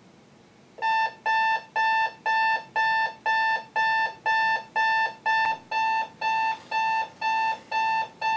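Emerson LED clock radio's alarm going off: a steady electronic beeping, about two beeps a second, that starts just under a second in.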